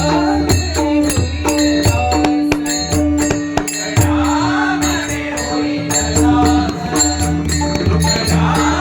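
Marathi bhajan music: a steady held drone note under rhythmic drum strokes and metallic jingling percussion, with a voice drawing out a melodic line now and then.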